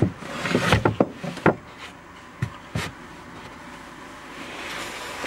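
Campervan rear seat frame being pulled forward to make the bed: a few knocks and clunks in the first second and a half, and one more about three seconds in.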